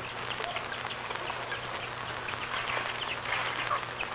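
Chickens clucking, many short calls scattered throughout, over the steady hiss and low hum of an old film soundtrack.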